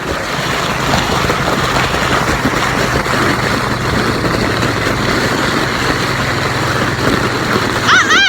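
Four-wheeler (ATV) engine running steadily, a low hum under a rushing noise, with a high-pitched yell near the end.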